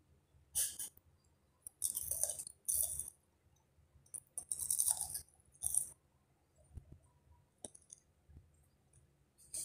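A woman breathing out sharply through her open mouth, about six short hissing breaths in the first six seconds, then only faint small clicks. These are the breaths of someone reacting to the burn of raw chilli and bitter gourd in her mouth.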